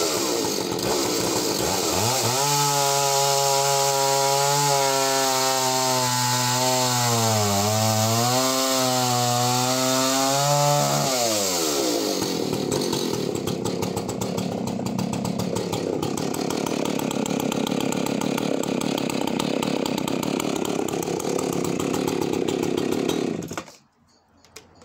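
Husqvarna 285CD two-stroke chainsaw at full throttle cutting a disc off a log. The engine pitch dips under load mid-cut, then the saw runs on out of the wood and cuts out suddenly near the end as it is shut off.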